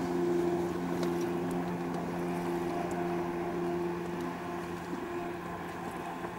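Motorboat engine running at a steady pitch while towing a wakeboarder, over a hiss of wind and water. It grows a little fainter toward the end.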